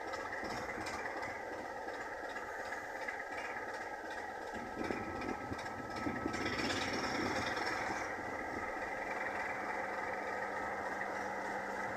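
Class 27 diesel locomotive's Sulzer six-cylinder engine running at idle, with a louder, fuller surge from about five seconds in that eases back after a few seconds.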